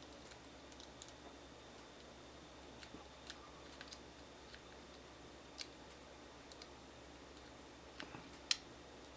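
Faint, irregular metallic clicks and ticks of a lock pick and tension wrench working the pin stack in the keyway of a Fortress 40mm pin-tumbler padlock, with a sharper click near the end.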